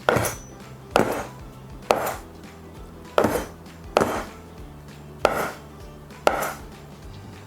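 Knife chopping down through a roll of floured homemade noodle dough, cutting it into strips: seven sharp chops about a second apart.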